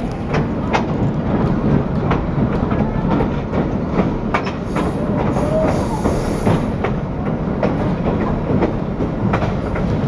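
Passenger train running along the track, heard from aboard: a steady rumble with irregular clicks of the wheels over the rail joints, and a short high note about halfway through.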